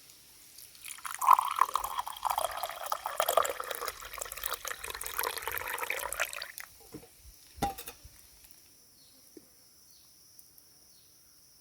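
Water splashing and trickling for about five seconds, then two sharp knocks.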